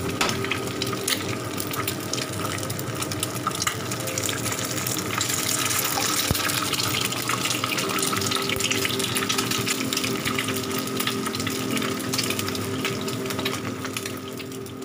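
Eggs frying in hot oil in a nonstick pan: a steady sizzle with many small crackling pops.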